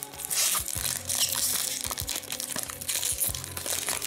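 Foil wrapper of an Upper Deck hockey card pack crinkling and tearing as it is pulled open by hand, in an irregular run of crackles.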